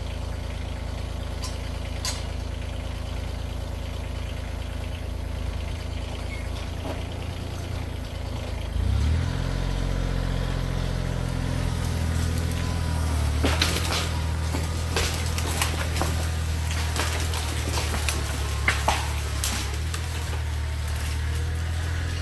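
Tractor engine idling, then throttled up about nine seconds in and held at higher revs under load. A scattering of sharp knocks and cracks follows, in the second half.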